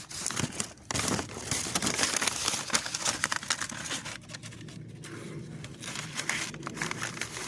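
Paper bag crinkling and rustling as it is handled, with a dense run of small crackles.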